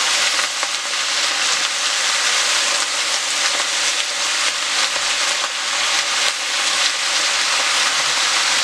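Shredded cabbage frying in hot oil in a pot: a steady sizzle with faint crackles, stirred with a wooden spoon.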